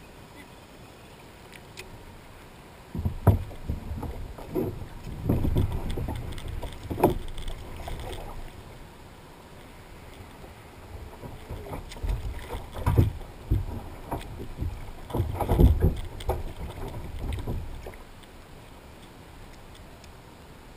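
Splashing and irregular thumps and knocks against a plastic kayak hull as a swimming dog is hauled out of the water, in two bouts with a lull between.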